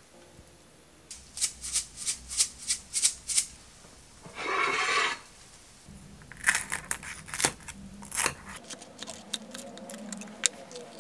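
Sharp clicks and crackles of kitchen utensils: a spatula scraping and tapping sauced tteokbokki out of a frying pan onto a ceramic plate, then chopsticks breaking into the crisp lattice skirt of a pan-fried gyoza. A brief rushing noise comes a little past four seconds.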